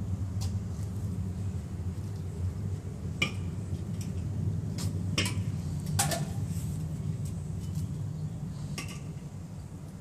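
Aluminium beer cans clinking and knocking against each other and the concrete floor as they are stacked by hand: a handful of separate clinks, the sharpest about three and six seconds in, over a steady low hum.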